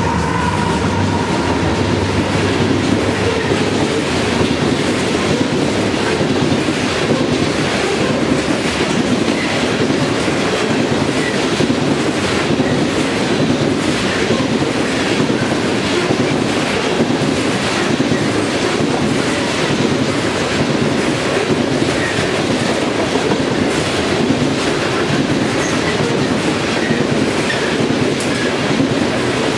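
Train passing close by, its wheels clicking over the rail joints in a steady, even rhythm under a continuous rumble of the cars. A horn note dies away right at the start.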